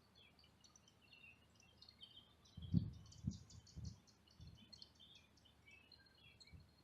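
Birds chirping faintly in quick short notes, with a few low thumps about three seconds in.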